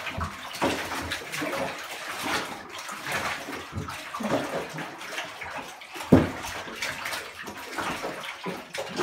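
Shallow bathwater sloshing and splashing in a bathtub as two small children spin around in it, in uneven surges. There is one sharp, louder splash or knock about six seconds in.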